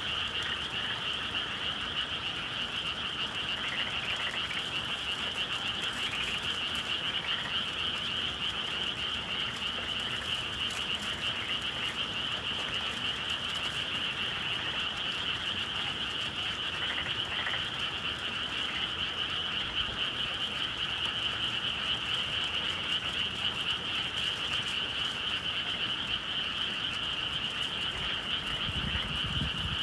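Dense chorus of many frogs calling at once, a steady unbroken trilling wall of sound.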